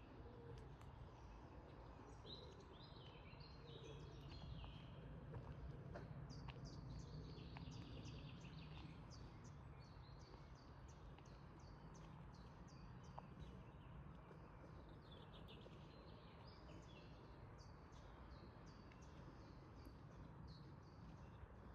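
Faint forest ambience: several birds chirping and singing, with runs of short repeated chirps in the middle, over a steady low rumble.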